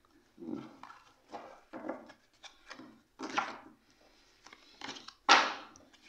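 Oracle cards being handled on a wooden tabletop: a string of short rustles, slides and taps, the loudest a sharp one about five seconds in.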